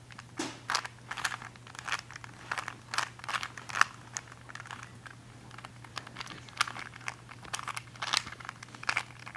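Rubik's cube layers being turned by hand: irregular sharp plastic clicks and rattles, a few a second, over a low steady hum.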